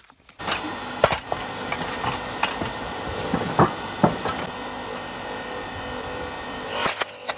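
Electric hydraulic log splitter running steadily, its motor and pump humming, while several sharp cracks of wood sound as the wedge forces into a short pine log.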